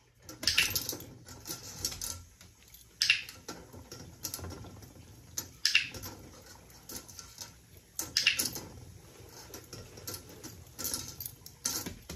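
A dog nosing and licking for treats inside a metal colander set over a metal bowl, with sharp metallic clinks and rattles about every two and a half seconds as treats land in it.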